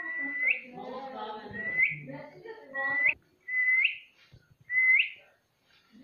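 Indian ringneck parakeet whistling one held note five times, each ending in a quick upward flick, about a second apart. Low chattering sounds come between the first few whistles.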